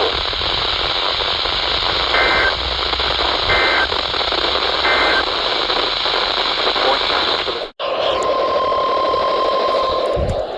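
NOAA Weather Radio signal under steady static hiss: three short two-tone EAS data bursts, the end-of-message code, about two, three and a half and five seconds in. After a brief dropout near eight seconds, a steady single-pitch 1050 Hz weather-radio alert tone sounds for about two seconds.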